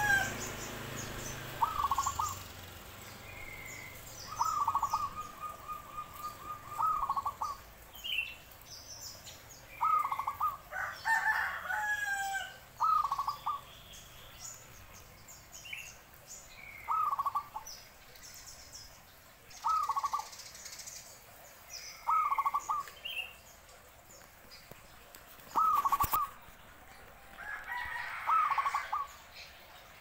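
Zebra dove (perkutut) singing its cooing song, a short pulsed phrase repeated every two to three seconds.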